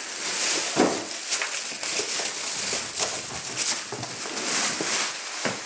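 Thin plastic bag crinkling and rustling as it is pulled off a boxed pressure cooker, a continuous crackly rustle with many small snaps.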